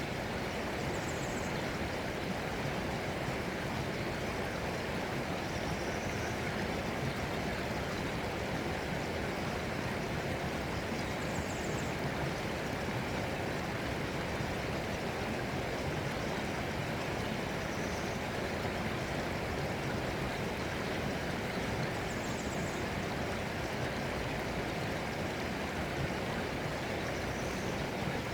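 Steady rushing of flowing stream water, unchanging throughout, with faint short high chirps recurring every five or six seconds.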